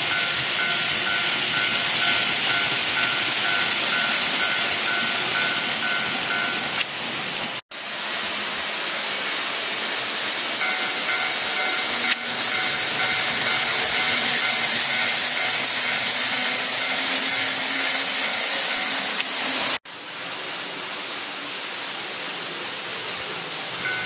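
Model railway level-crossing warning bell ringing as a rapid repeating tone over a steady hiss of N-gauge trains running on the track. The sound cuts out briefly twice.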